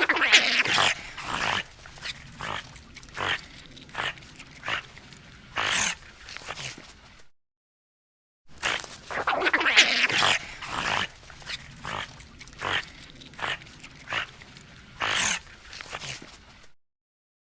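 Eurasian otter (Lutra lutra) calling: a dense run of high calls, then single short calls roughly one a second. The recording stops, and after about a second of silence the same sequence plays again.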